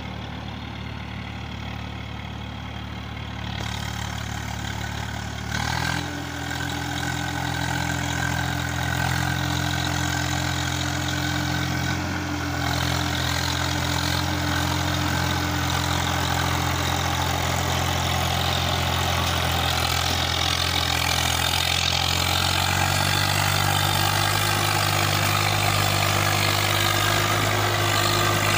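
Swaraj 855 tractor's three-cylinder diesel engine running under load, pulling a fully loaded trolley. The note changes about six seconds in, grows steadily louder as the tractor comes closer, and rises slightly in pitch near the end.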